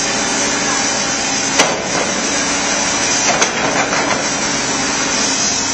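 Diesel engines of construction machinery, a backhoe and dump truck, running steadily under a loud rushing noise, with two sharp metallic knocks, about one and a half and three and a half seconds in.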